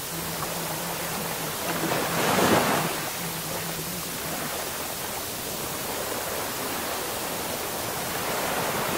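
Steady rushing noise like running water or surf, swelling louder for about a second between two and three seconds in, with a faint low hum beneath it: the masking noise of a subliminal audio track.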